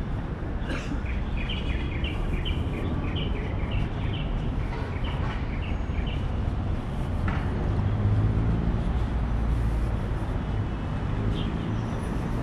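Small birds chirping in quick, short high notes over a steady low traffic rumble, which grows louder about eight seconds in as the chirping fades.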